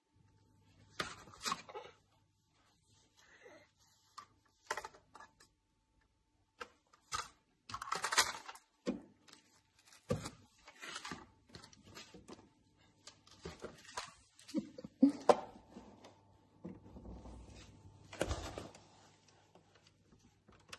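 Scattered light knocks, taps and clatters, with quiet gaps between them, of hands handling a plastic toy barn on a windowsill.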